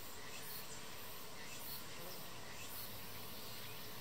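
Insects calling: a steady high-pitched hiss with a louder pulse of shrill song roughly once a second.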